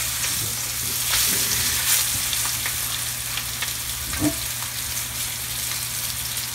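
Floured Spanish mackerel fillets sizzling as they fry in hot peanut oil in a skillet. The sizzle swells briefly about a second in, and a slotted metal fish turner clicks against the pan as the fillets are flipped, most sharply about four seconds in.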